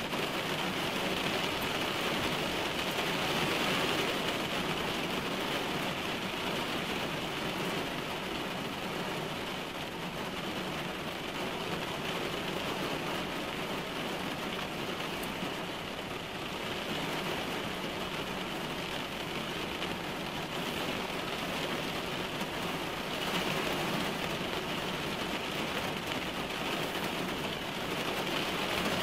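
Rain drumming on a car's roof and windshield, heard from inside the cabin: a dense, steady patter that swells slightly a few times.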